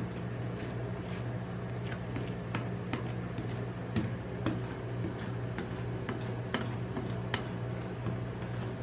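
Stainless steel spatula scraping and tapping across a thin layer of freezing ice cream on a cold plate, in irregular sharp clicks several times a second, over the steady low hum of the cold plate's refrigeration unit.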